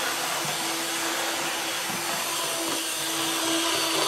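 N scale model locomotive running fast along the track at speed step 63: a steady whirring hiss with a low hum that drops out briefly about midway.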